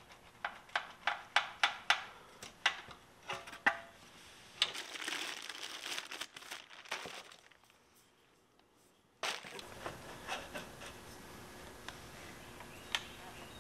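Sharp, irregular clicks, a few a second, from hand tools working at the motorcycle's exhaust mount. Then a plastic bag crinkles for a couple of seconds as the LV-10 slip-on muffler is pulled out of it. After a short near-quiet gap there is faint handling noise with a few clicks as the muffler is fitted.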